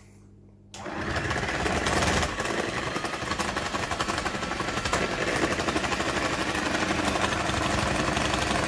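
Old electric hand mixer switched on a little under a second in, then running steadily as its twin beaters whisk egg white toward stiff peaks.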